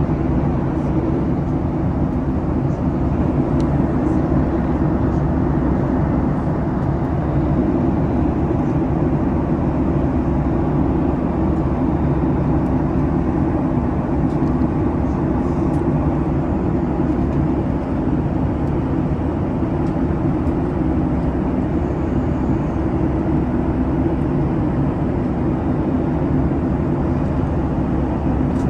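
Steady, even cabin noise of a Boeing 737 MAX airliner: engine and air rumble heard from a passenger seat, unchanging throughout.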